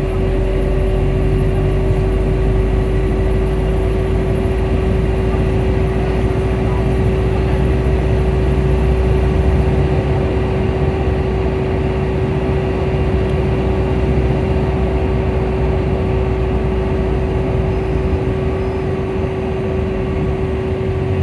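Volvo B5L hybrid bus running, with a steady hum held at one unchanging pitch over a low rumble that shifts slightly.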